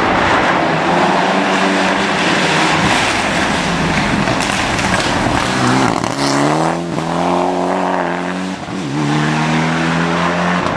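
Mitsubishi Lancer rally car approaching through a hairpin, its engine and tyre noise swelling, then accelerating hard away at high revs. The engine pitch climbs, breaks briefly at a gear change, then climbs and holds high again.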